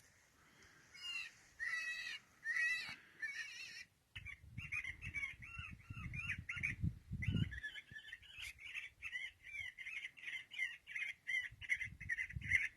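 Harsh crow-like bird calls, first four separate wavering calls, then a quick run at about two a second, over a low rumble.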